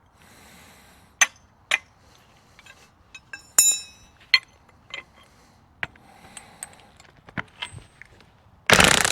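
Scattered sharp metal clinks and knocks of anchor bolts, washers and tools being handled, with one ringing clang about three and a half seconds in. Near the end an impact wrench starts up loudly, driving a concrete anchor bolt.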